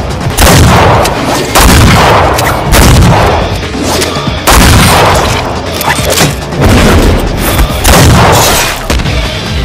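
Heavy gunfire in an animated action scene: loud, sharp shots roughly once a second, each trailing off in a booming echo over a low rumble.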